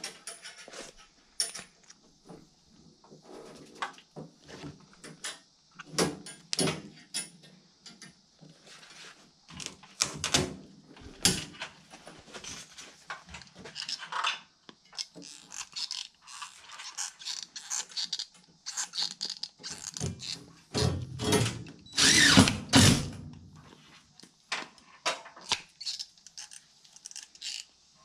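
Irregular clicks, clacks and scrapes of hand-tool work on furnace parts: plastic and sheet-metal pieces being handled and trimmed with aviation tin snips. The loudest burst of clatter comes a little past two-thirds of the way through.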